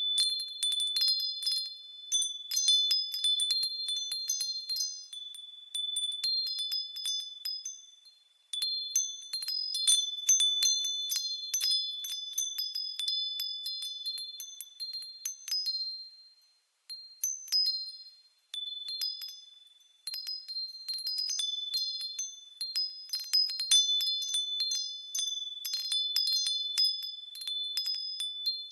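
Wind chimes tinkling in irregular flurries of high, clear, ringing tones. They die away briefly about a third of the way through and again a few times just past the middle, then pick up again.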